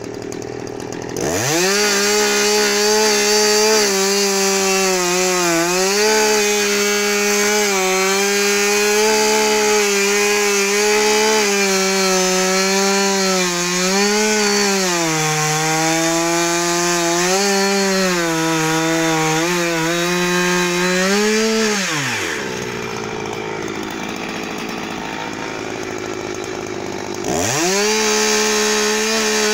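Husqvarna 359 two-stroke chainsaw revving up from idle about a second in and cutting through a log at full throttle, its pitch sagging and recovering as the chain loads up in the wood. After about twenty seconds it drops back to idle for a few seconds, then revs up again into the cut near the end.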